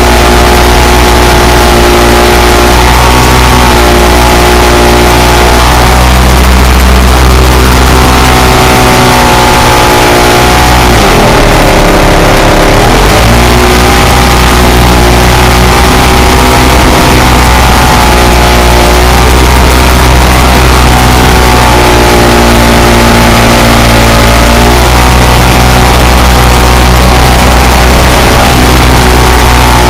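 Clipped-wing Cub's engine and propeller running loud at close range, with a steady rush of wind over the microphone on the landing gear. The engine note wavers and dips briefly about ten seconds in, then steadies.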